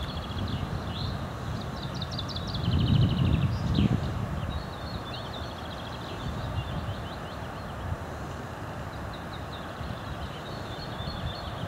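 Small songbirds singing in quick trills and chirps over steady outdoor noise, with low wind rumble on the microphone swelling loudest around three to four seconds in.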